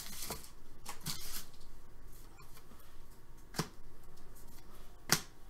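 Hockey trading cards rustling and sliding against each other as a freshly opened pack is flipped through by hand, with a few sharp card clicks, the loudest about three and a half and five seconds in.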